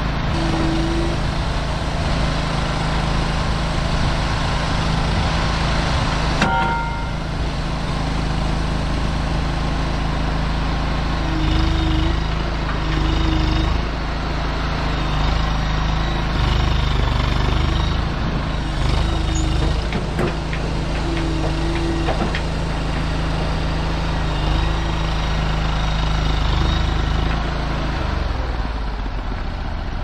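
Mini skid steer's small engine running under heavy load as its hydraulics lift the tongue of a flatbed trailer and its tracks try to pull it; the engine note swells and eases several times and short tones come and go. A brief squeal about six seconds in.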